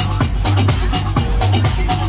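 Loud electronic dance music with a steady beat and heavy bass.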